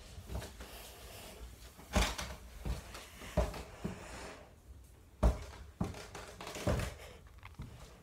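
Footsteps climbing stairs: a string of irregular dull thuds, roughly half a second to a second and a half apart.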